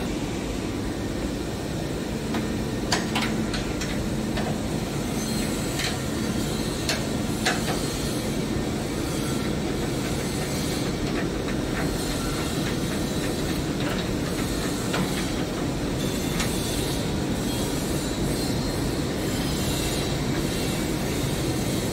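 Steady low rumble of running factory machinery, with a few short sharp clicks and knocks scattered through, from hands and tools working on the opened diffusion pump.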